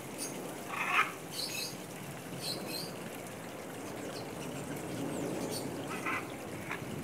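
Macaws giving short, harsh squawks: a few in the first three seconds and two more near the end, over a steady low background hiss.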